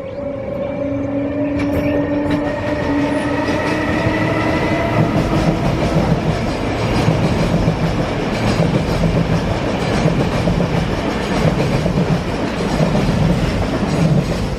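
Electric passenger train passing close by on the mainline: a whine that rises slowly in pitch over the first few seconds, giving way to a loud rolling rumble with repeated clatter of wheels over the rails as the cars go past.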